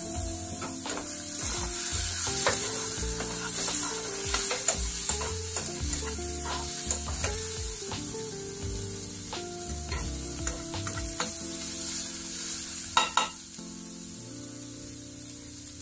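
Diced asparagus sizzling as it fries in an aluminium frying pan, stirred with a spatula that scrapes and taps on the pan, with two sharper knocks near the end.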